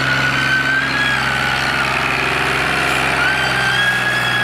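Tractor's diesel engine running steadily under heavy load, pulling a trailer stacked with bricks hard enough to lift its front wheels. A thin high whistling tone rides above the engine and steps up in pitch about three seconds in.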